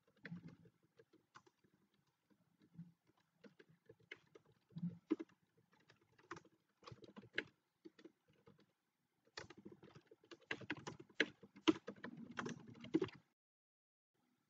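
Faint typing on a computer keyboard: scattered key clicks at first, then a quicker run of keystrokes over a few seconds that stops a little before the end.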